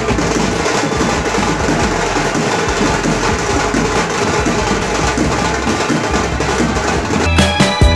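Street band drummers beating a snare-type drum and a cylindrical drum with sticks in a fast, dense, continuous rhythm. Near the end, pitched background music comes back in over it.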